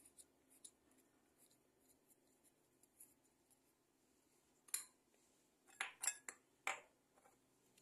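Mostly near silence with faint light ticks, then a short cluster of sharp clinks and taps in the second half: a small glass bowl knocking against a ceramic plate as chopped garlic is tipped out onto it.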